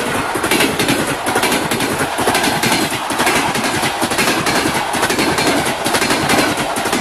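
Passenger train's wheels clattering rapidly over the rail joints in a dense run of knocks, over a steady rushing rumble as the coaches pass.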